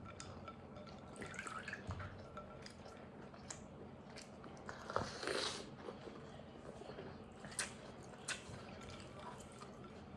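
Faint chewing and mouth sounds of people eating a soft baked cookie, with a few small, sharp clicks.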